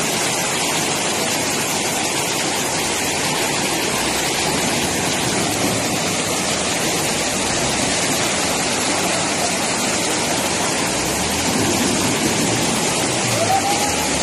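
Loud, steady rush of a fast, muddy river in flood.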